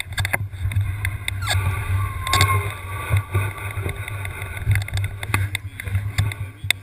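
All-terrain wheelchair rolling down a rough trail: a continuous low rumble with frequent rattles and knocks from the ground.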